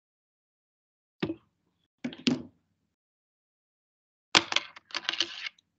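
A few knocks and bumps from someone moving about close to the microphone: a single knock about a second in, a pair two seconds in, and a longer run of clattering bumps near the end.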